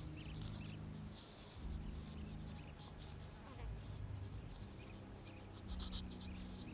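Faint buzzing of flying insects, its pitch shifting every second or so, with small high chirps scattered through.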